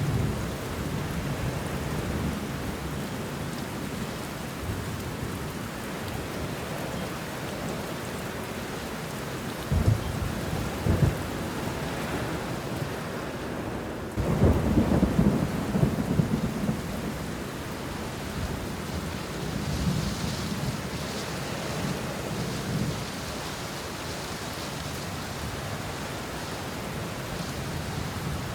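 Steady rain falling on banana leaves and bush, with thunder rumbling. Two short low claps come about ten seconds in, and a longer, louder roll of thunder follows about four seconds later.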